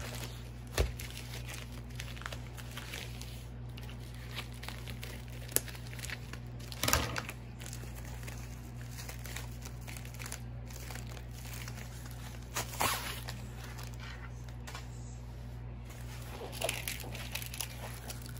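Sticky plastic packaging on a diamond painting kit crinkling and tearing in short bursts as it is pulled open, loudest about seven seconds in, over a steady low hum.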